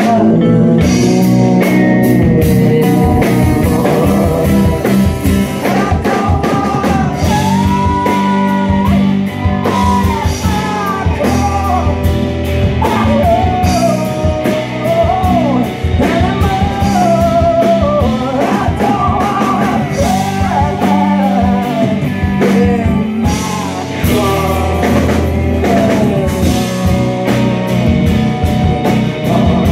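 Rock band playing live: a sung lead vocal over electric guitars, bass guitar and a drum kit.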